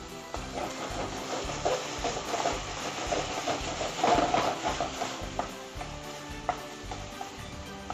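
A spatula scraping and stirring sauce round a nonstick kadai on a high gas flame, the sauce sizzling underneath; the scraping is loudest about halfway through.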